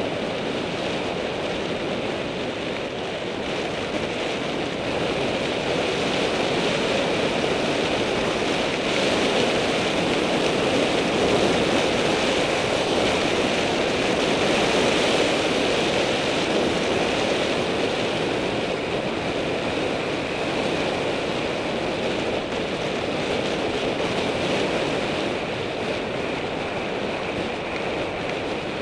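Wind rushing over the microphone and tyres rolling on rough asphalt as a bicycle descends at speed. It is a steady noise that grows louder around the middle and eases again near the end.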